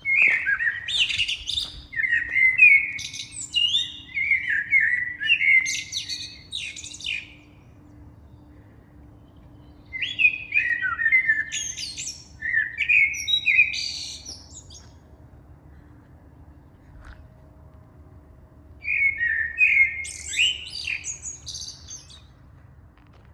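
A songbird singing loudly in three bouts of quick, varied warbling phrases, the first about seven seconds long and the later two shorter, with pauses of a few seconds between them.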